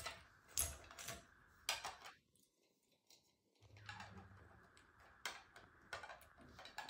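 Small plastic game cubes clicking and tapping against each other as they are picked up, turned and set into place: light, scattered clicks, with a second or so of near silence about two seconds in.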